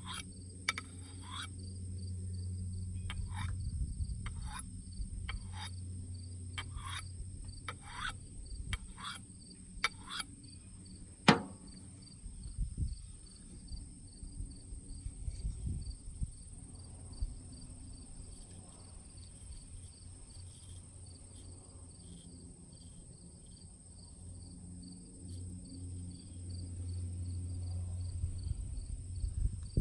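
A natural jasper whetstone puck scraping along a steel axe edge in short, light finishing strokes, about a dozen over the first ten seconds, followed by a single sharp click.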